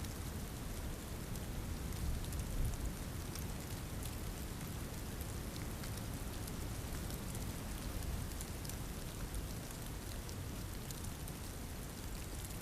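Steady storm precipitation: a constant hiss dotted with many fine ticks of falling drops, over a low rumble.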